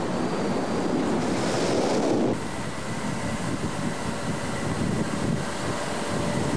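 Wind rushing over the camcorder microphone together with road and engine noise from a car driving along. The noise changes abruptly and drops a little about two seconds in, where the recording breaks and restarts.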